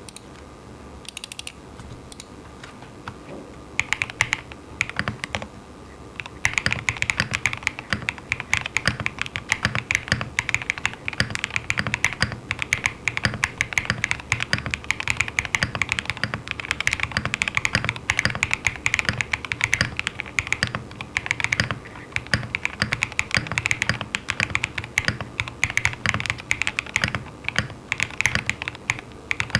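Typing on a custom mechanical keyboard (Monokei TGR Tomo, aluminium top-mount plate, lubed JWK Peach Bloom switches, PBT keycaps): a short burst of keystrokes about four seconds in, then continuous fast typing from about six seconds on. A faint steady electrical buzz from a faulty XLR cable runs underneath.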